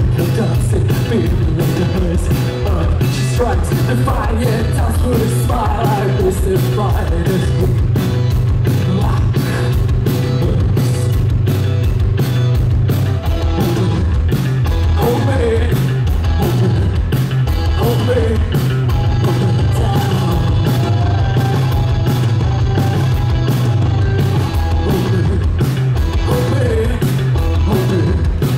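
Post-punk band playing live: loud bass, electric guitar and a steady drum beat, with a singer's voice over the top.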